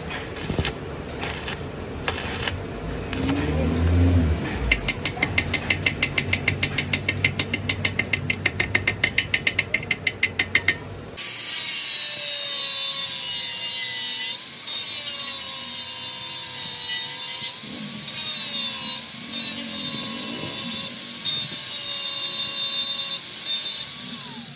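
Ratchet clicking in quick even strokes, about four clicks a second, after a few irregular clicks. About eleven seconds in it cuts off abruptly and a steady hiss with a wavering whine takes over.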